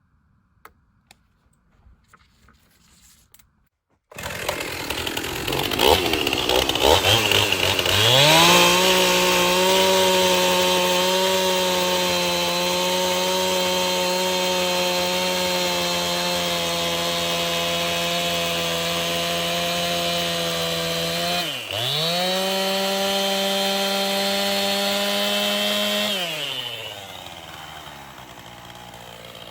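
Stihl two-stroke chainsaw on an Alaskan chainsaw mill ripping a board: after a few faint clicks it comes in abruptly about four seconds in, revs up to full throttle and holds a steady high pitch through the cut, with one brief dip in revs, then drops back to idle near the end.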